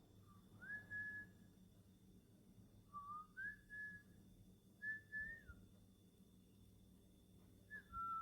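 Cockatiel whistling four short, clear phrases: the early ones step up in pitch to a held note, and the later ones drop in pitch at their ends.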